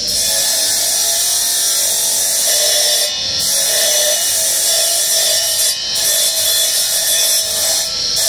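Circular stone-cutting disc grinding grooves into a small marble block, a steady high whine over a gritty hiss. The hiss drops out briefly about three, six and eight seconds in, as the stone comes off the blade between cuts.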